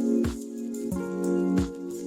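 Background music with a steady beat: sustained pitched chords over a regular thumping kick.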